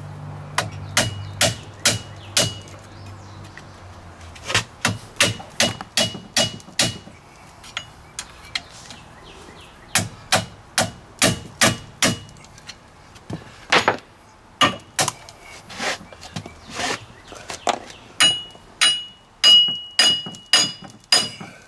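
Hammer blows on a steel punch set against a rust-seized front wheel hub bearing, knocking it out of the steering knuckle. The blows come in runs of several at about two a second, many of them with a high metallic ring, and the strikes grow louder near the end.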